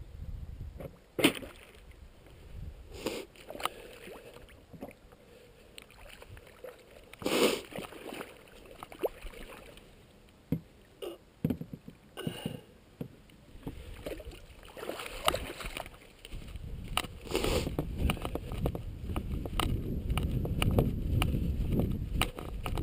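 Irregular splashes and knocks of shallow lake water as a Pro Boat Zelos 36 RC catamaran is lifted out at the shore, with no motor running. In the last few seconds a steady low rumble of footsteps and handling noise builds up.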